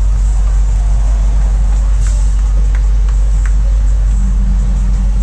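Open-air tour trolley's engine running with a steady low rumble, with a few light clicks around the middle.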